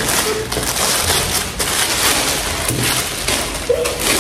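Packaging wrap being handled and pulled apart: a continuous crinkling rustle with many small crackles.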